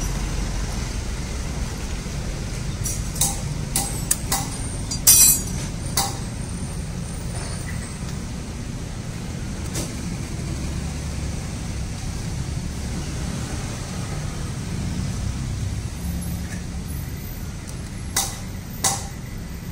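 Scattered sharp metal clinks of a screwdriver and wrench against the water-pump housing of a Honda Vario scooter engine. Most come in a cluster around four to six seconds in, the loudest ringing briefly, and two more come near the end. A steady low background rumble runs under them.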